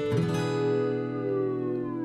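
Instrumental guitar music: a chord is struck and left to ring, with a note gliding slowly downward as it sustains.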